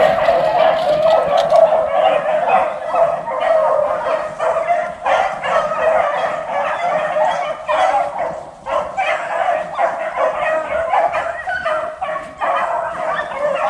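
A pack of beagles baying on a rabbit's trail, their voices overlapping almost without a break, with a short lull a little past halfway.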